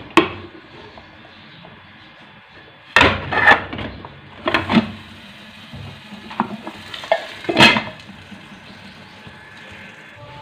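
Aluminium pot lid clanking and scraping against the pot as it is lifted and turned over on the stove. There is a sharp click right at the start, then three louder metal clatters spread over the next several seconds, with lighter knocks between, over a steady low hiss.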